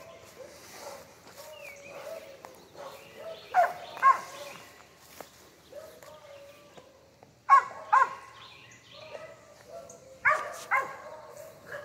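Cur dog barking treed at a squirrel up a tree: sharp barks in pairs every few seconds, with a high wavering whine between them.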